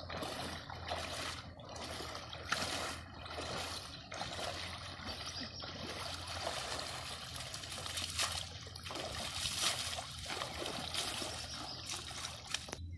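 Shallow river water splashing and sloshing around a person wading and shoving a bamboo-framed push net through it, with many short splashes one after another.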